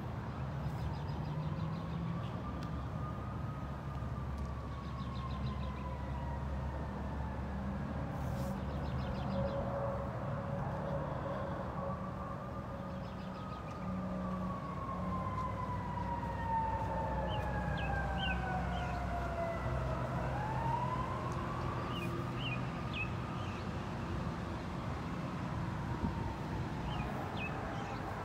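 An emergency-vehicle siren wailing, its pitch rising and falling slowly in long sweeps about three times, over a steady low rumble. A few short high chirps come in the second half.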